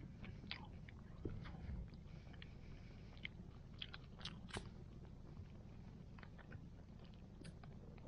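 A person eating hot stew: faint chewing with scattered small clicks.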